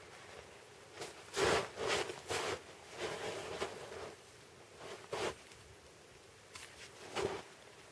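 Young pine shoot tips being cut off by hand: a series of short rasping, rustling sounds of blade through twigs, shaken needles and the nylon sleeve of a down jacket, loudest about a second and a half in, with a few more spaced out after.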